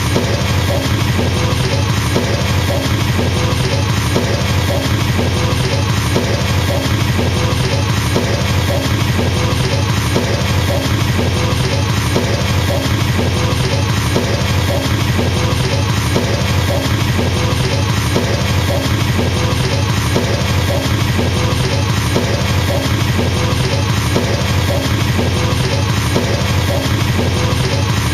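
Drum kit with double bass drum pedals, played as a continuous, fast, even stream of kicks that sounds like a machine gun.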